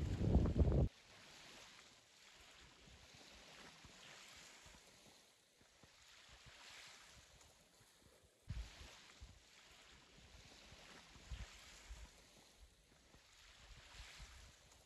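Wind buffeting the microphone with a loud low rumble that cuts off about a second in. Then faint calm-sea ambience: gentle waves washing on a shell beach, with a few short low wind thumps on the mic.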